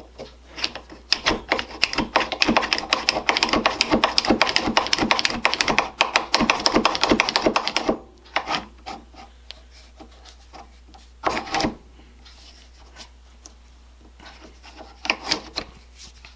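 Goodell Pratt No. 105 push drill pumped up and down, its spiral-shaft mechanism clicking rapidly as the 1/8 inch bit cuts into a wooden board, for about seven seconds. After that come only a few scattered knocks and clicks.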